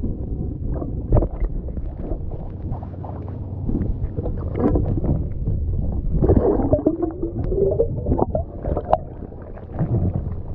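Muffled underwater sound of moving water and bubbles picked up by a submerged camera, with scattered knocks and clicks. A wavering, warbling sound runs for a couple of seconds past the middle.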